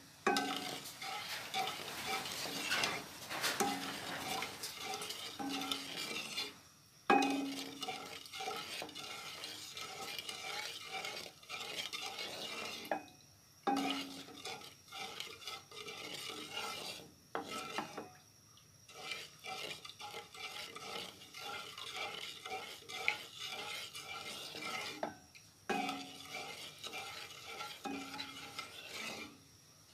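Wooden spatula stirring and scraping milk and sugar around a non-stick wok in repeated strokes as the mixture is cooked down over low heat into condensed milk. The stirring stops briefly a few times.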